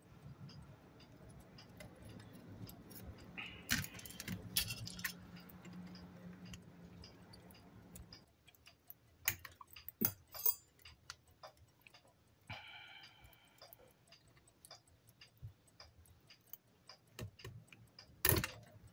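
Scattered light clicks and taps of small plastic and metal camera parts being handled and worked with a fine tool, with a louder click near the end. A faint low hum lies under the first half.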